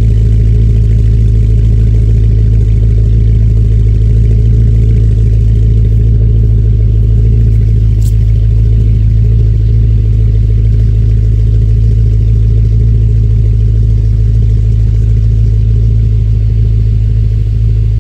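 BMW E70 X5M's twin-turbo V8 idling steadily after a cold start, its exhaust note coming through catless downpipes and an MR Supremo exhaust.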